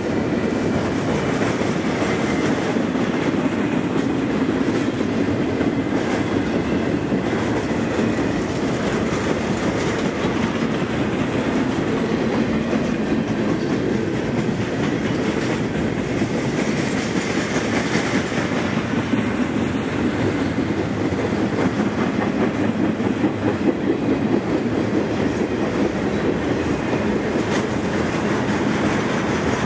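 Intermodal freight train rolling past at close range, its double-stack container well cars and trailer-carrying flatcars making a steady rolling rumble of steel wheels on rail.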